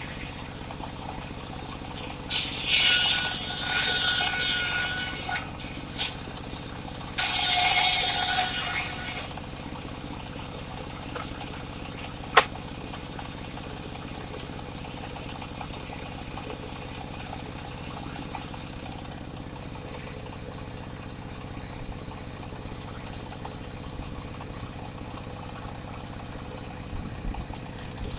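Circular saw blade cutting mahogany in two short passes, the first about three seconds long and the second about two, each a loud high hiss of the blade in the wood. Between and after the cuts a steady low running hum continues, with one sharp click about halfway.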